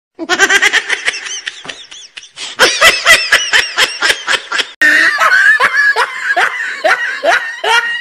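Edited-in laughter: rapid 'ha-ha-ha' laughing in quick pitched pulses, cut off and replaced by a second laughing clip about five seconds in.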